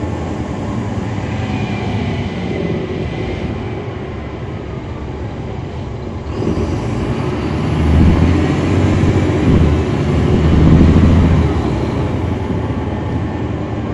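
Caterpillar C13 ACERT diesel engine of a NABI 40-SFW transit bus, heard from inside the bus. It runs steadily at first, then grows louder about six seconds in as the bus accelerates, with a short dip between two loud stretches, and eases off near the end.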